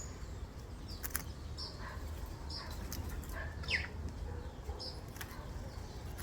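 A small bird chirping, short high chirps repeated about once a second over a steady low background rumble, with a couple of sharp clicks about a second in and near the middle.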